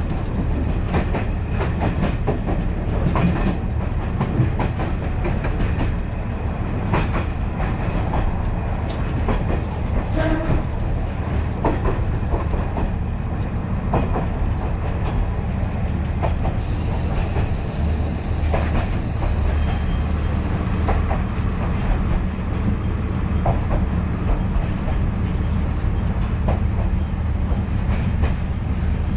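Inside a KiHa 40 series diesel railcar running on jointed track: a steady low rumble from the engine and running gear, with wheels clicking over rail joints. A high metallic squeal with a few higher overtones sounds for about four seconds past the middle.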